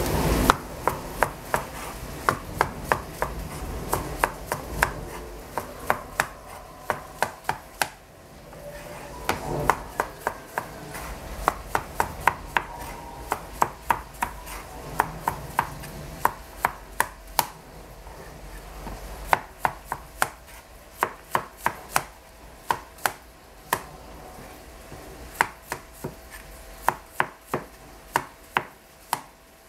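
Chinese cleaver slicing zucchini on a plastic cutting board: sharp knocks of the blade on the board in runs of steady strokes, about two or three a second, with short pauses between runs.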